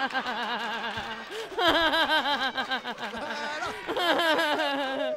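A woman laughing hard into a microphone: repeated rounds of rapid, pulsing laughter, with short breaks and a fresh round about a second and a half in and another about four seconds in.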